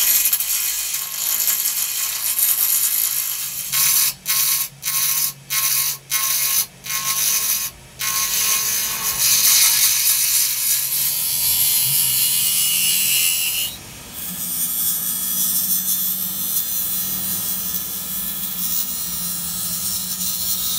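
A turning gouge cutting a spinning ebony blank on a wood lathe: a loud, steady hiss of the cut over the low hum of the lathe. The hiss stops and starts about six times in quick succession about four seconds in, and dips briefly about two-thirds of the way through.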